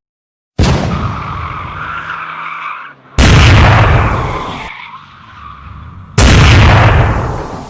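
Dubbed race-car sound effects: three loud bursts, each cut in abruptly and then fading, the first carrying a steady squeal.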